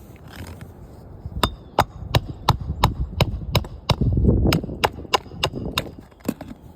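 Hammer driving nails during a roof shingle repair: a rapid, even run of sharp blows, about three a second, with a brief low rumble in the middle.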